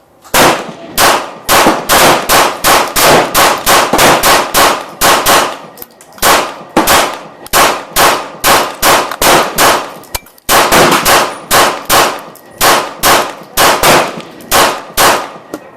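Glock 19 Gen4 9mm pistol fired in fast strings with Tula 115-grain ammunition, about three shots a second, with a brief break about ten seconds in.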